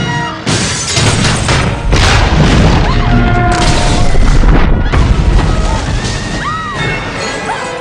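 Film sound effects of a runaway construction crane smashing into a building: several heavy crashes of breaking metal and glass with a deep booming rumble that peaks about four seconds in and then ebbs. Dramatic orchestral film music plays over it.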